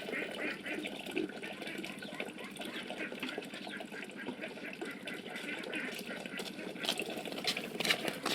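Water splashing and trickling, with a few sharper splashes or knocks near the end.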